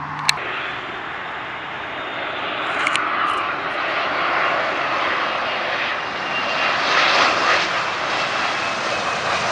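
Jet airliner on approach passing overhead: a steady rushing jet engine noise that swells over the first few seconds and then holds, with a faint thin whine later on.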